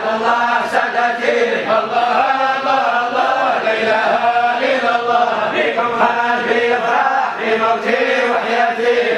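A group of men's voices chanting together in unison, a Sufi devotional chant (dhikr or sama) sung in long phrases.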